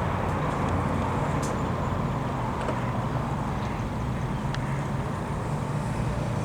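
Steady low engine drone under a wash of noise.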